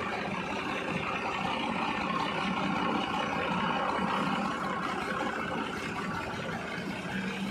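Water gushing and splashing as a motor-driven paddle wheel lifts canal water, over the steady hum of its 10 hp drive turning through a shaft and gearbox.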